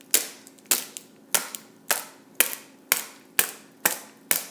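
A fist gripping a fidget spinner striking a plastic Gatorade bottle again and again, about nine sharp hits at roughly two a second. The bottle holds up.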